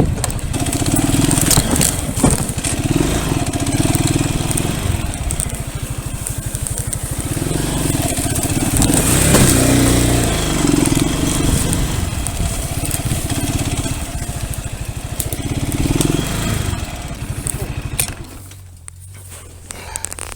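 A pit bike's single-cylinder engine running and revving unevenly as it rides through forest mud and puddles, the revs rising and falling. About eighteen seconds in, the engine sound drops away sharply, leaving a quieter stretch with a few clicks.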